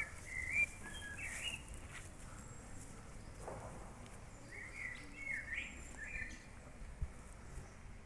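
A songbird singing short warbled phrases in two bouts, one at the start and another about five seconds in, over faint outdoor background noise.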